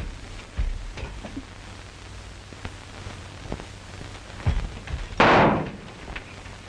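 A single loud gunshot about five seconds in, with a short echoing tail, over faint scuffs and clicks and the hiss of an old film soundtrack.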